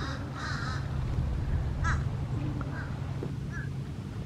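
Birds calling with harsh, caw-like notes: two quick calls at the start, another about two seconds in, then fainter ones, over a steady low rumble.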